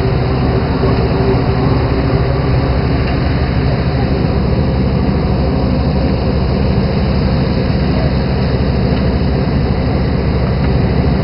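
A fishing boat's engine running steadily, a loud, even low drone with no change in speed.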